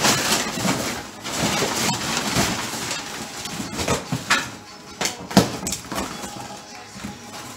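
Packing paper, plastic sheeting and cardboard rustling and crinkling as they are pulled off a new bumper, with irregular handling knocks and one sharp knock a little after five seconds in.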